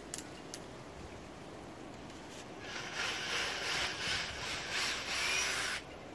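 Cordless drill boring a hole in the boat's structure: about three seconds of grinding drilling noise, starting about two and a half seconds in and stopping abruptly when the trigger is let go. Two light clicks come right at the start.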